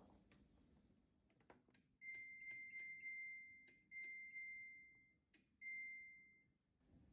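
Washing machine's electronic beeper sounding three long tones at one high pitch, each fading away, with a few light clicks around them.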